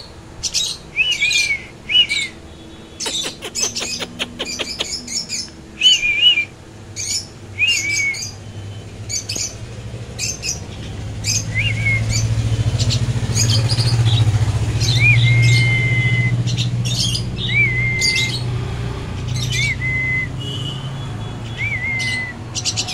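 Mynas calling again and again with sharp squawks and short up-and-down chirps, with a quick run of clicks a few seconds in. A low engine-like hum swells through the middle and fades.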